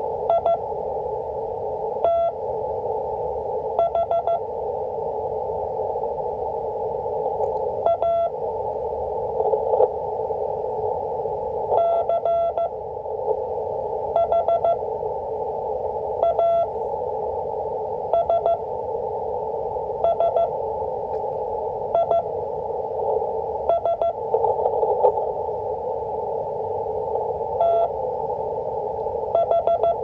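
Slow 5 words-per-minute Morse code practice received on an Icom IC-718 HF transceiver in CW mode. Short and long beeps of a single steady tone come in spaced groups with pauses between them, over a constant hiss of band noise through the radio's narrow CW filter.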